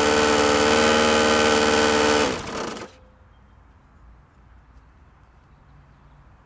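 1995 Powr Kraft push mower's Briggs & Stratton engine running steadily with a strong buzz, which the owner cannot explain and wonders may be a bent crankshaft. About two seconds in it is shut off and coasts down to a stop within a second, leaving faint room tone.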